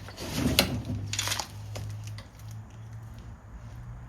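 A few sharp knocks and clicks as hard parts of a hitch-mounted bike rack are handled and fitted, the loudest about half a second in, over a steady low hum.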